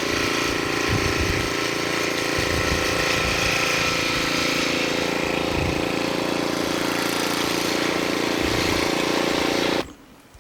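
An engine running steadily, with a few low thumps over it; the sound cuts off suddenly near the end.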